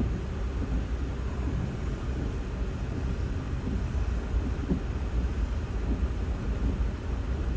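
Steady low rumble of a vehicle driving through snow, with engine and tyre noise heard from inside the cabin.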